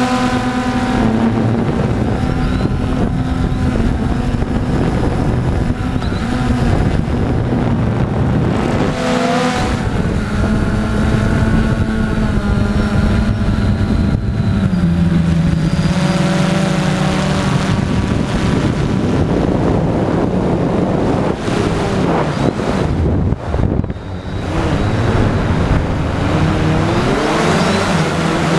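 Storm X3 drone's electric motors and propellers humming in flight, heard from the camera on board. The pitch slides up and down as the throttle changes, and the sound dips briefly about three-quarters of the way through.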